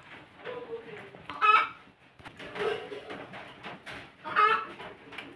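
Chickens clucking, with three loud calls a second or two apart.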